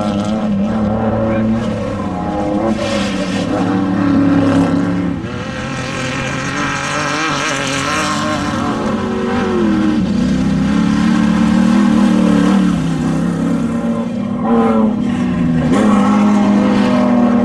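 Off-road desert race vehicle engines running and revving, their pitch rising and falling again and again.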